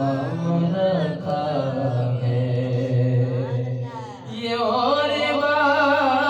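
A man chanting a devotional naat in a slow, drawn-out melody. About four seconds in, a higher, sustained, wavering melodic line takes over.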